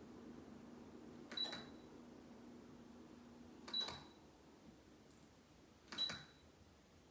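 Faint steady hum of a ceiling fan that dies away about three and a half seconds in, with three sharp ticks, each followed by a brief high ring, a little over two seconds apart.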